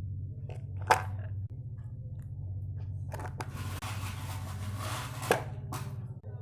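Packaged food being handled while stocking a refrigerator: a sharp knock, then about two seconds of crinkling packaging, then another knock, over a low steady hum.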